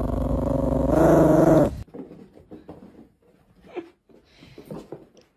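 Yorkshire terrier growling loudly for nearly two seconds, the growl swelling and rising in pitch before it cuts off. Then faint scattered knocks and rustles.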